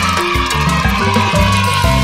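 Background music: a bass line moving from note to note under a held higher chord.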